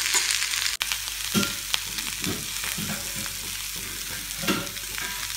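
Chopped long beans sizzling in hot oil in a kadai as a steel spoon stirs and tosses them, with a few short scrapes and clacks of the spoon against the pan over the steady hiss.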